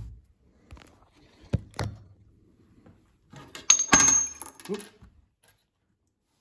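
Claw hammer knocking a retaining pin home into a steel differential case: a couple of sharp knocks, then a louder cluster of metallic strikes with a brief high ring about four seconds in.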